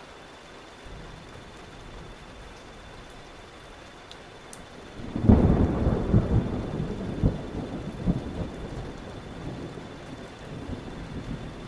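Thunderstorm: steady rain, then about five seconds in a loud clap of thunder breaks into a long rolling rumble that swells several times and slowly fades.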